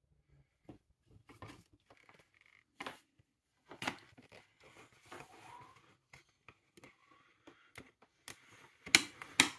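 Handling noises on a metal work plate as a resistance soldering probe, its leads and magnets are moved about: scattered light clicks and rustles, then two sharp metallic clicks about half a second apart near the end.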